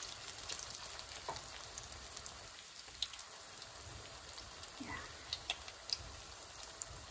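Breaded chicken cutlet frying in shallow hot oil in a nonstick pan: a steady sizzle with scattered small crackles, the cutlet freshly laid into the oil.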